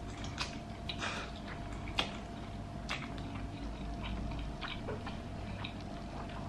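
Quiet close-up eating sounds: soft chewing with scattered small mouth clicks, and two sharper clicks about two and three seconds in.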